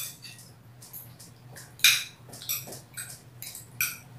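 Spoons and forks clinking and scraping against glass dinner plates as two people eat: a scatter of short, sharp clinks, the loudest about two seconds in, over a low steady hum.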